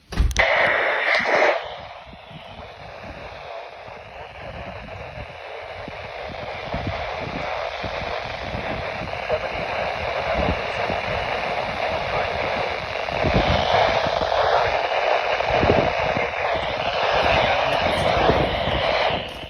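Weather radio receiver hissing with static while trying to pull in a weak, distant station. A brief louder burst comes at the start, and the hiss grows gradually louder.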